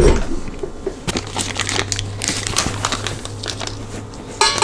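Paper butter wrapper crinkling and rustling as a stick of butter is unwrapped and cut with a knife, with many small clicks. A low thump right at the start as the tilt head of a KitchenAid stand mixer is raised, a steady low hum from about a second in, and a sharper clink with brief ringing near the end.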